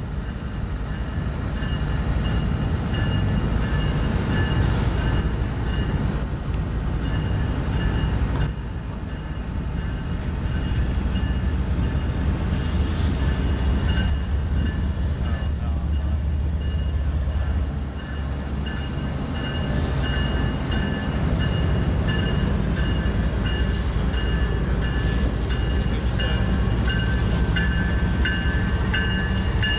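CSX diesel-electric freight locomotives approach and pass close by at a grade crossing, their engines making a heavy low drone that swells as the lead units go past. Over it the crossing's warning bell rings in a steady repeating pattern.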